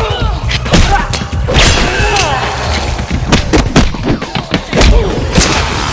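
Fight sound effects: a fast, irregular run of hard punches, hits and thuds, a dozen or more, with deep booms under the strongest blows.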